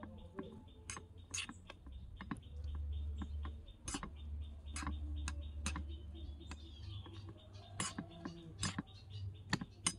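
A small metal spoon stirring bean sprouts and egg in a miniature iron wok: irregular light clicks and scrapes of the spoon against the pan, over a low steady rumble.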